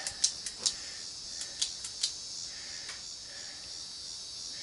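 A series of light clicks and taps from handling the small parts of a dismantled angle grinder, about eight in the first two seconds and one more near three seconds, over a steady high-pitched hiss.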